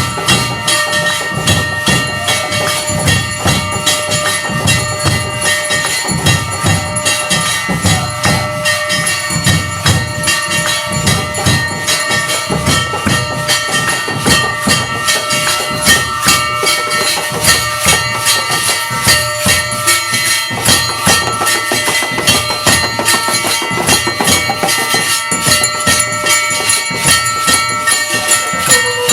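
Aarti music of a Hindu temple ritual: metal bells ringing on and on over rhythmic drumming and jingling percussion, beating about twice a second.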